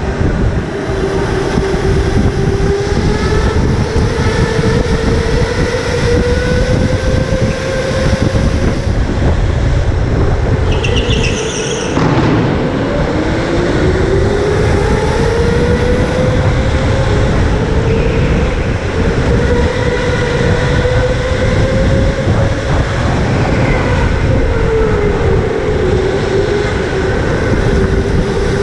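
Electric go-kart motor whine rising and falling in pitch with speed over a steady low rumble from the kart. About twelve seconds in the whine drops sharply as the kart slows, then climbs again as it accelerates, with a brief high squeal just before the drop.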